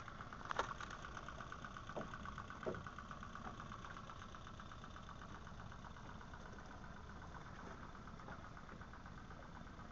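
A small boat's outboard motor running steadily, a faint even drone with a fast regular pulse. A few brief faint chirps sound in the first three seconds.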